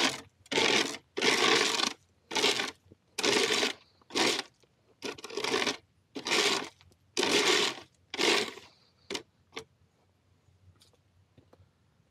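Repeated scraping of a hand scooper through alpaca droppings and stall bedding while mucking out: about ten rough strokes, roughly one a second, then a couple of light taps.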